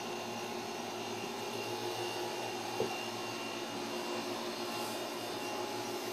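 A steady mechanical whir with a constant low hum, with one faint tap about three seconds in.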